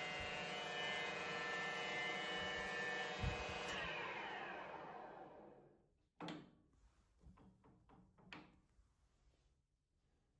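Colchester Chipmaster lathe running steadily with a many-toned whine; about four seconds in the spindle is stopped and the machine winds down, the pitch falling to silence over about two seconds. A few light clicks of the control levers follow.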